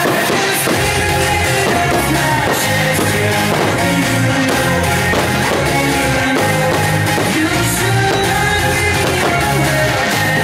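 Music with singing and a rock-style band playing, loud and steady.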